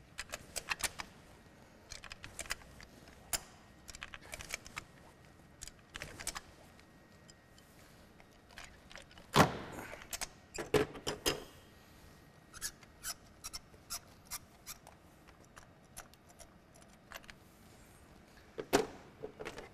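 Spark plug wrench being worked in the plug well to loosen and remove a spark plug: short clusters of metallic clicks and clinks, with a louder knock about nine seconds in and another near the end.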